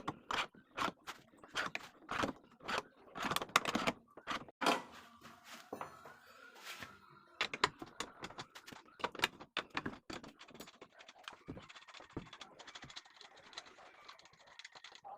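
Series of sharp metallic knocks, about two or three a second, then a busier run of clicks and scraping as tools and wheel parts are handled during a car tyre change.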